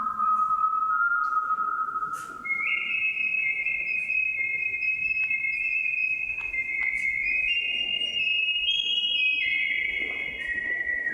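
A person whistling a melody in long held notes. The tune jumps up in pitch about two and a half seconds in, then moves between high sustained notes.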